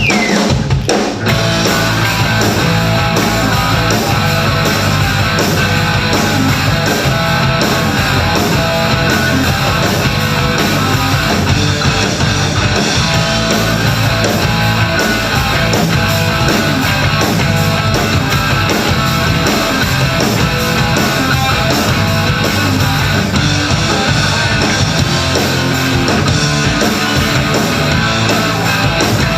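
A rock band playing a song live, led by electric guitar, with a steady rhythm and heavy bass.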